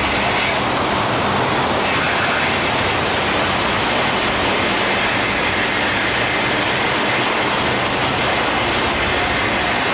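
Steady rush of rough, churning sea water along a ship's hull, with a low steady hum underneath.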